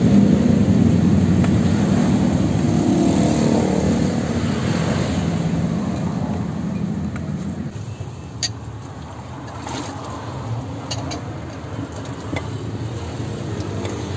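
A car driving past on the road, loudest at the start and fading away over about eight seconds. After that, quieter street background with a few light clinks.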